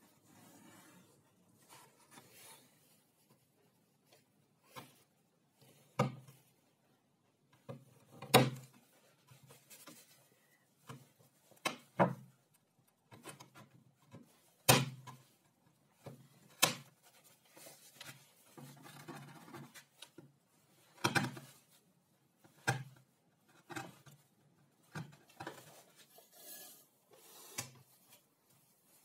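Hand-tool work on a plywood sheet: a pencil scratching along a steel ruler, then a chisel scraping in a narrow slot. Scattered sharp knocks of tools and wood on the wooden bench come every second or two, the loudest about eight and fifteen seconds in.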